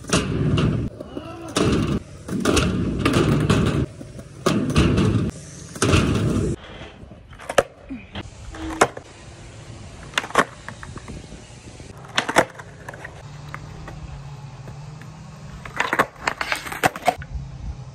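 Skateboard wheels rolling loudly over concrete in several short runs, then sharp wooden clacks of the board's tail popping and the deck landing back on the concrete during ollie attempts, a cluster of them near the end.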